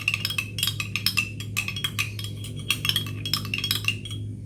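Rapid, irregular light clicks and clinks over a steady low hum.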